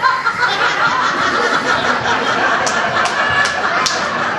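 Theatre audience laughing, a dense mass of many voices together. Four sharp clicks come in quick succession in the second half.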